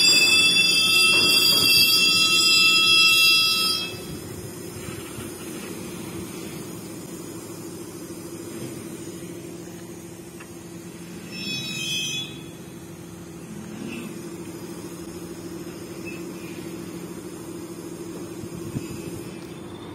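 Tank wagons of a train being shunted, rolling slowly, with a loud high wheel squeal that cuts off a few seconds in. A steady rumble of wheels on rail follows, with a brief second squeal about halfway through.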